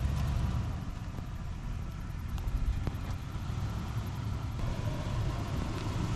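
Lexus GX470's V8 engine idling.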